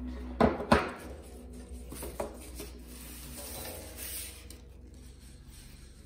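Two sharp knocks on the tabletop about half a second in, then a lighter tap, followed by stiff cardstock rustling and rubbing as hands press a glued seam of a paper bird cage together.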